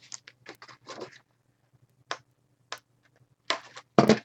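Paper being handled and folded on a work surface: a cluster of short rustles in the first second, then a few sharp clicks, the loudest just before the end.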